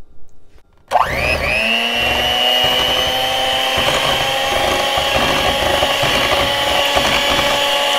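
Handheld electric mixer switched on about a second in, its motor whine rising quickly to a steady pitch, the beaters whipping liquid pumpkin pie filling in a glass bowl.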